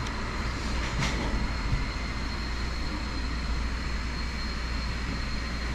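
Steady indoor background noise: a low hum with a faint, thin high-pitched whine, and a single click about a second in.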